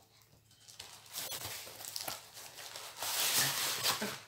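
Parcel packaging being handled and unwrapped by hand: crinkling, rustling and tearing, with a few sharp crackles, louder from about three seconds in.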